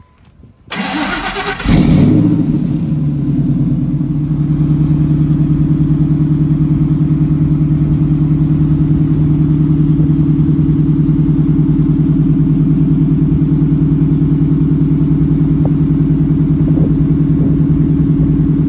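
A vehicle engine cranks on its starter for about a second, catches, and settles into a steady idle with an even pulse. It is a cold start in freezing weather.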